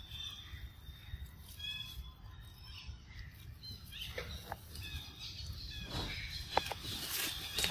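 Forest ambience: a few short, high chirps in the first couple of seconds, then scattered light clicks and rustles in dry leaf litter as macaques move about.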